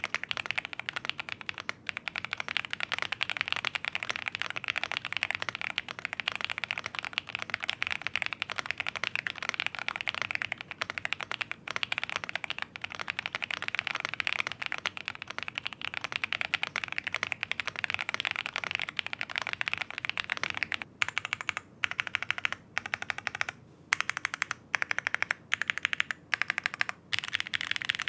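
Typing on a Velocifiretech M75, a foamed, gasket-mounted 75% mechanical keyboard with linear switches: a dense, steady stream of key clacks. About three-quarters of the way through it breaks into short bursts with brief pauses.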